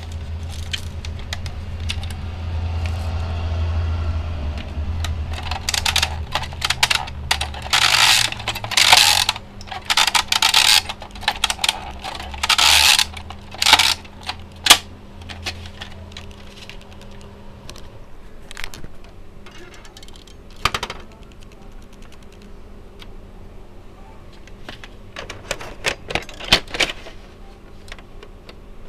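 Hard plastic rattling and clicking as a VHS cassette is handled, in a dense run of clatters through the middle, then a few scattered clicks. A steady low hum runs underneath and stops a little over halfway.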